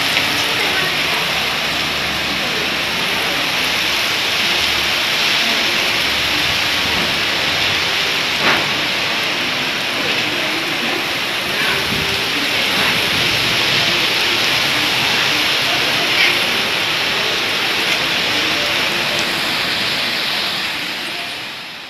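Heavy monsoon downpour: a steady, dense hiss of rain falling on flat concrete rooftops, with a few sharp taps of nearby drops. It fades out near the end.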